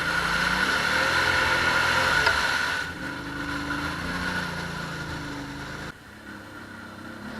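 ATV engine revving hard under load for about three seconds, then running at lower revs before dropping off about six seconds in.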